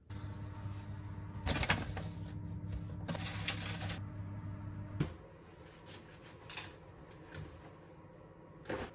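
Household handling sounds. While a protein drink is made there is a steady low hum with two bursts of rattling. After a click about five seconds in the hum stops, and clothes are loaded into a washing machine with soft rustles and a few light knocks.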